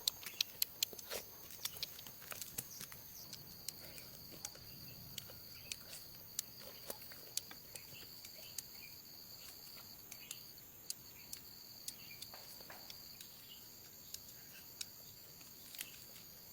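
Steady high-pitched insect drone, crickets or similar, with frequent sharp clicks and taps scattered throughout, thickest in the first couple of seconds.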